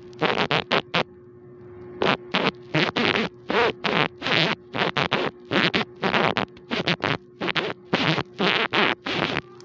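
Rapid, irregular scratchy rubbing on the microphone as a playing kitten's fur and paws brush against the phone, about two or three short bursts a second with a brief pause about a second in. A steady low hum runs underneath.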